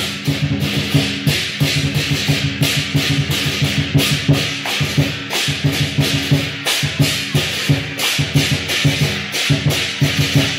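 Lion dance percussion: drum beats and clashing hand cymbals playing a fast, steady rhythm throughout.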